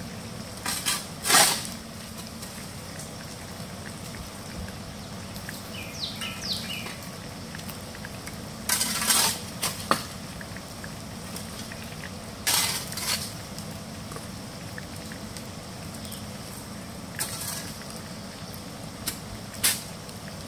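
Long-handled metal utensil scraping and clanking against a cast-iron Dutch oven in short strokes, about half a dozen times, while meat is turned as it sears over a wood fire. A bird chirps briefly about six seconds in.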